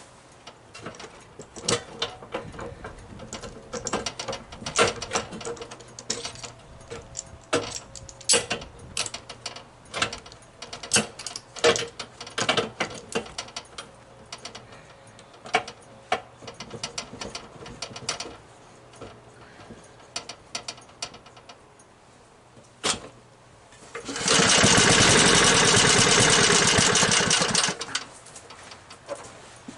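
Scattered metallic clicks and knocks of hands and tools on the mower. Then, near the end, the 1983 Snapper mower's small engine runs loud and fast for about four seconds before cutting out suddenly, a short-lived start on an engine the mechanic suspects he may have flooded.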